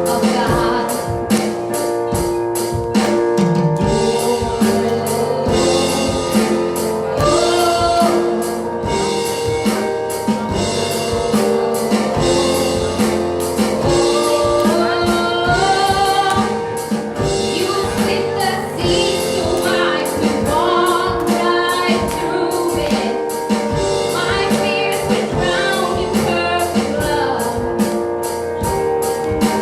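Live gospel worship music: singers with a band, a drum kit keeping a steady beat.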